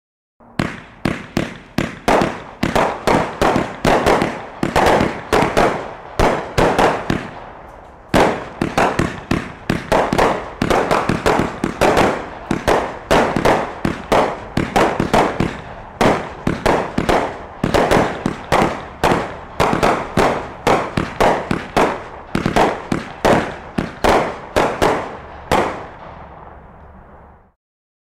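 A 49-shot, 500-gram consumer firework cake firing its shots in rapid succession, about two sharp bangs a second, each with a short ringing tail. There is a brief lull about eight seconds in, and the volley trails off near the end.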